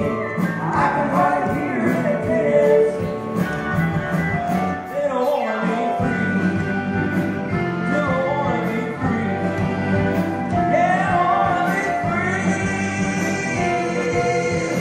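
Live country band playing a song with singing, acoustic guitars, electric bass and keyboard over a steady beat.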